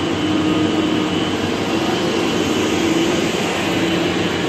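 Dean Smith and Grace lathe running with a steady mechanical drone and rattle, still banging about.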